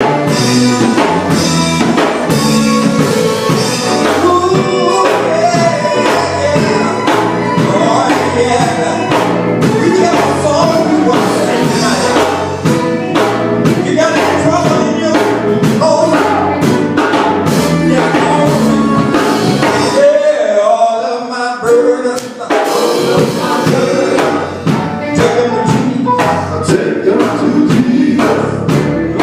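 A gospel group rehearsing a song: singing over a full band with drum kit. About twenty seconds in, the band and drums drop out for a couple of seconds while a single voice carries on, then everything comes back in.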